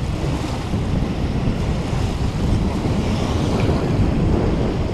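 Wind buffeting the microphone: a steady, gusting rumble of low noise.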